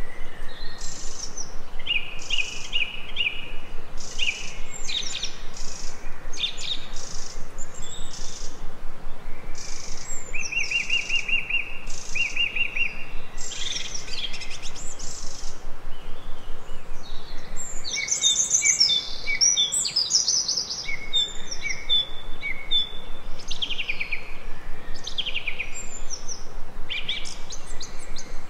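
Songbirds chirping and singing: many short repeated chirps and quick trills, busiest just past the middle, over a steady background hiss.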